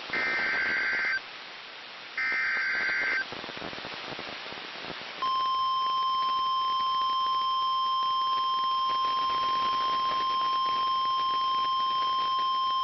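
Emergency Alert System SAME header: two bursts of warbling digital data tones, each about a second long and a second apart. About five seconds in, a steady single-pitched weather alert tone starts and holds, signalling that a National Weather Service severe thunderstorm warning follows.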